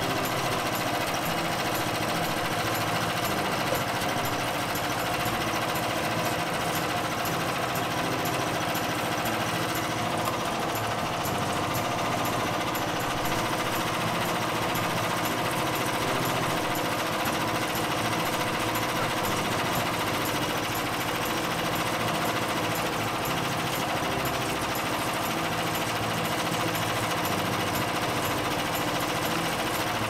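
Frontier OS27 portable sawmill's small gasoline engine running steadily at an even speed, with no change in load.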